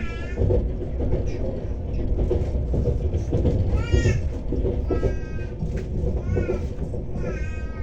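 Steady low rumble of a moving train, with five short high cries over it, each rising and falling in pitch, at the start and then about every second from the middle on.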